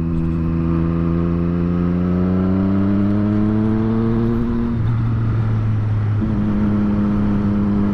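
Triumph Street Triple 765 R's three-cylinder engine pulling under way, its pitch climbing steadily for about five seconds. It then breaks off and settles at a slightly lower, steady pitch, as on a gear change.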